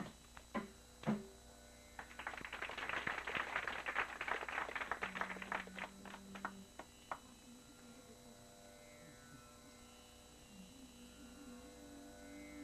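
The last few sharp mridangam and ganjira strokes, followed by a few seconds of scattered hand-clapping that marks the end of a Carnatic piece. After that there is a soft steady drone, and near the end a singer's voice comes in quietly.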